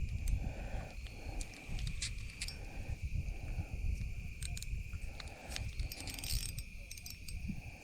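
Insects trilling steadily on one high, unbroken tone, over a low rumble with scattered faint clicks.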